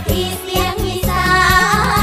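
Isan Thai pop song sung by a woman: band backing over a steady bass, with a wavering melody line in the second half.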